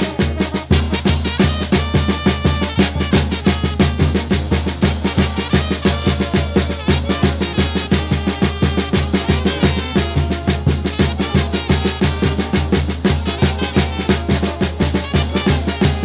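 Instrumental banda music: a brass band playing over a steady, fast bass-and-drum beat, with horn lines held above it.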